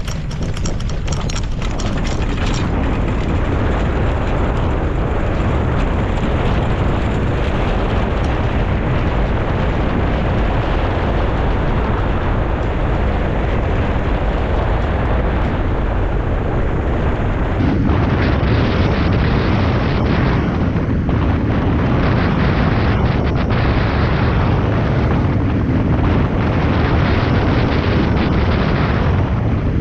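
Strong wind buffeting a camera microphone: a loud, steady deep rumble and hiss, with a change in tone about 18 seconds in.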